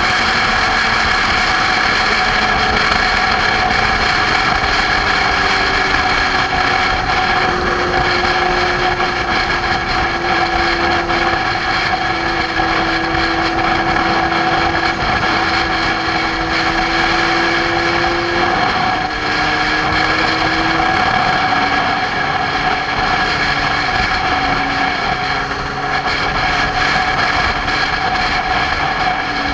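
Motorcycle engine running at cruising speed under heavy wind and road noise. Its pitch drifts slowly, then drops sharply twice, a little past the middle.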